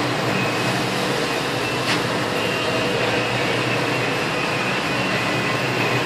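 Steady background hiss and hum of an auto repair shop, with one faint click about two seconds in.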